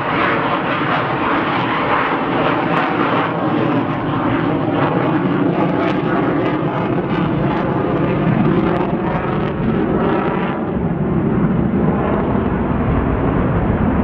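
Military jet flying overhead: a steady, loud rush of jet engine noise that turns duller about ten seconds in as it moves away.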